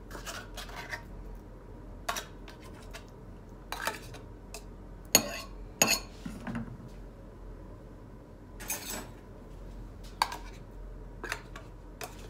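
A knife scraping and clicking against the inside of an opened tin can as canned sprats in tomato sauce are dug out into a bowl: irregular metallic scrapes and taps, with two sharp clinks about five and six seconds in and a longer scrape a little later.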